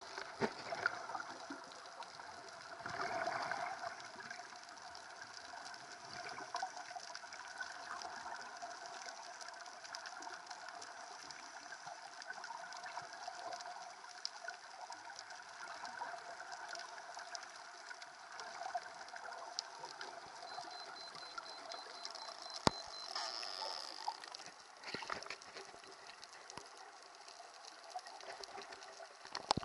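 Underwater sound picked up through an action camera's waterproof housing: a steady hiss of water noise, sprinkled with many faint crackles and ticks. The water noise swells louder about three seconds in and again near the end, and there is one sharp click a little after the middle.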